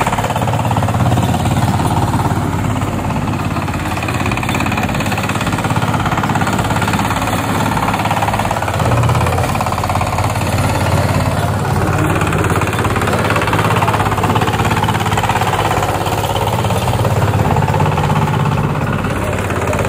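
Chinese diesel engine of about 20 hp on a homemade boat tractor, running steadily under load with a rapid knocking clatter as the tractor's paddle wheels drive it through paddy-field mud.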